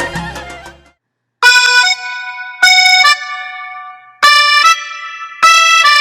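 Background music only. A traditional folk tune with a steady beat fades out in the first second, then after a short silence a new piece begins with held chords that come in fresh phrases about every second or so.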